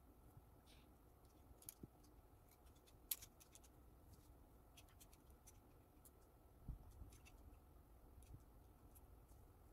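Near silence with faint, scattered clicks of small plastic Lego bricks being handled and pressed together. There is a sharper click about three seconds in and a soft thump about two-thirds of the way through.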